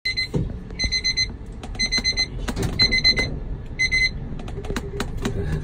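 Lift's electronic warning beeper: five quick bursts of high beeps about a second apart, stopping about four seconds in. Under it, the moving lift car rumbles and gives scattered clicks and knocks.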